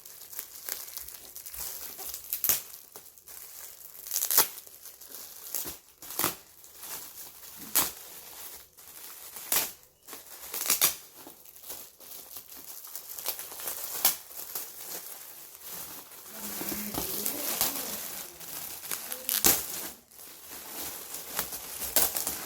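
Gift wrapping paper being torn open and crumpled by hand to unwrap a present: an irregular run of crinkling with sharp rips scattered throughout.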